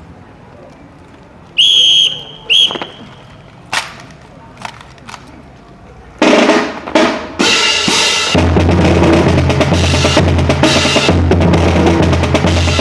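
Two short whistle blasts and a few sharp clicks, then a drum corps starts playing about halfway through: snare and bass drums, settling into a steady rolling beat.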